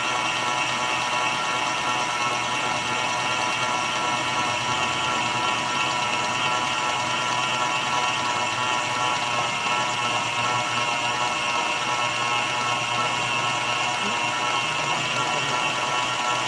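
Stand mixer motor running steadily with a wire whisk beating egg whites into meringue at the soft-peak stage, being whipped on toward stiff peaks. A steady, unchanging motor hum.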